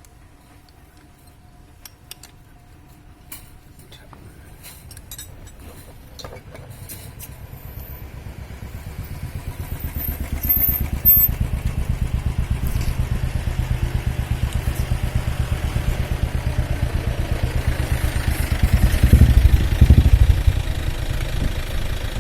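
A few faint clicks, then a vehicle engine running with an even pulsing beat that grows louder over several seconds, swells briefly near the end and settles back.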